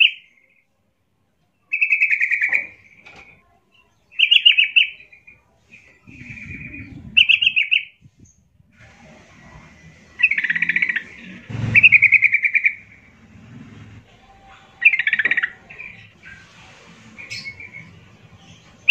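Yellow-vented bulbul singing: short, bubbling warbled phrases, about eight of them, each under a second and repeated every one to two seconds.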